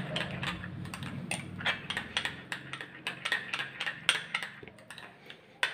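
Metal spoon stirring a thick mix of pizza sauce, ketchup and mayonnaise in a small glass bowl, clinking and scraping against the glass in a quick, irregular run of light clicks, with a sharper click near the end.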